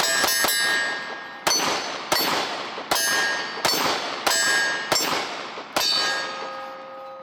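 A Glock 26 Gen 4 9mm pistol fired in a steady string of about eight shots, roughly two-thirds of a second apart, with a metallic ring after several of them. A steady ringing tone lingers after the last shot near the end.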